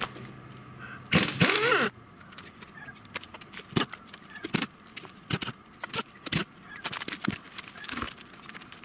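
Pneumatic impact wrench runs in a loud burst of about a second, spinning off a wheel lug nut, followed by repeated metallic clinks of lug nuts and tools handled by hand.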